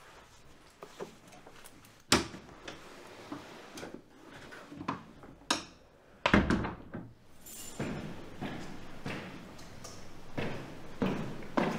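A door being handled: a sharp click about two seconds in, then the door thudding shut about six seconds in, the loudest sound, followed by a string of softer knocks.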